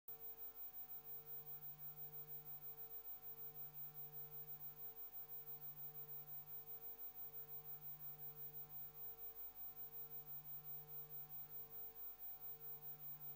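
Faint steady electrical hum on the broadcast audio line, made of a few fixed low tones with a slight even pulsing in loudness.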